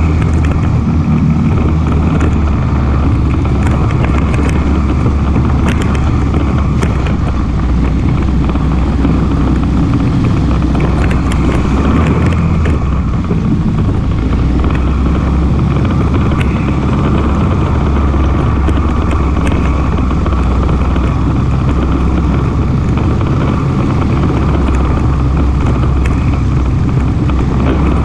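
ATV engine running steadily while riding, with scattered light knocks and clicks.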